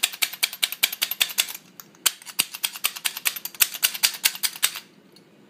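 Pepper mill being twisted over a pan, giving rapid ratcheting clicks of about seven a second, with a short pause about halfway through; the clicking stops shortly before the end.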